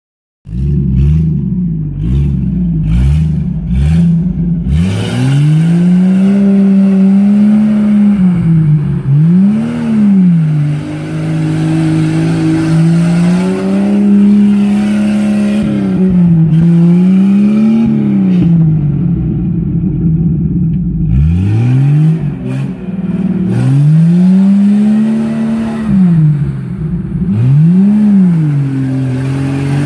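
1995 Jeep Cherokee XJ's 4.0-litre straight-six engine revving hard under load in deep mud, the revs climbing and falling back several times. There are a few sharp knocks in the first seconds.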